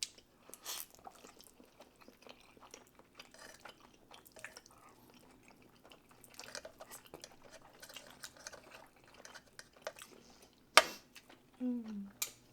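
Close-up eating sounds: quiet wet chewing of noodles and rice cake with many small mouth clicks, and a single sharp clink of a utensil on a dish near the end.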